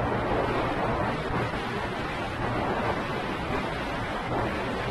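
Steady wind rushing over the microphone, with road noise, from travelling along a paved road.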